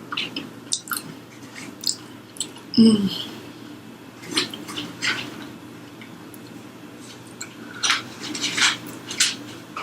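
Close-up chewing of fried chicken: irregular crunches, wet smacks and mouth clicks, with a brief low hum about three seconds in.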